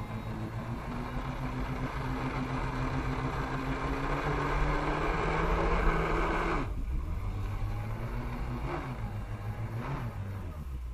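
Jet ski engine pumping water to a Flyboard, its pitch climbing steadily as the throttle is held open, then dropping suddenly about two-thirds of the way through when the throttle is cut back. Two short throttle blips follow near the end.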